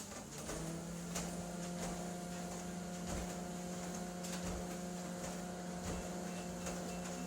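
Electric treadmill motor starting up: its whine rises briefly, then holds at a steady pitch. Light thuds come about once a second over it.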